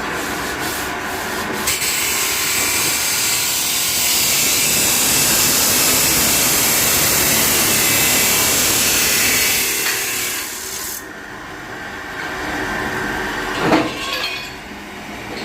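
A workshop machine running with a steady, harsh noise for about eleven seconds, then cutting off abruptly; a single sharp knock follows near the end.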